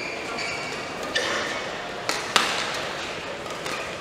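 Badminton rally: a sharp racket-on-shuttlecock hit about a second in and another just over a second later, with sneakers squeaking on the court floor near the start.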